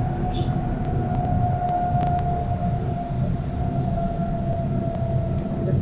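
Class 485 electric multiple unit heard on board at about 80 km/h while slowing down: a low running rumble with a steady high whine over it, and a few sharp clicks scattered through.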